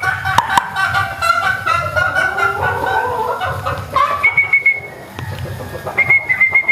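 Gamefowl hens and a rooster clucking and cackling, with short, high, level calls about four seconds in and again near the end.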